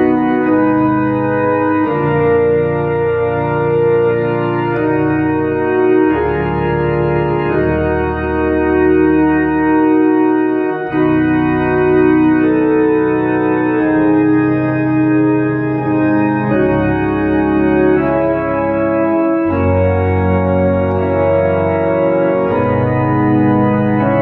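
Tokai YX 400 Organist electronic organ on a pipe-organ registration, playing a hymn in sustained chords over a moving pedal bass, the chords changing every second or two with a brief break about eleven seconds in.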